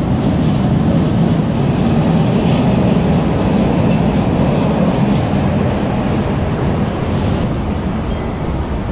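Manila LRT Line 1 train pulling out of the station alongside the platform: a steady low rumble that fades over the last few seconds as it moves away.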